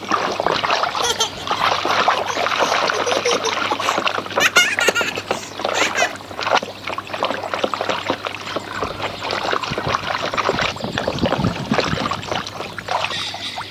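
Water splashing and sloshing in a plastic basin as a hand swishes a toy back and forth through it. A brief high-pitched sound comes about four and a half seconds in.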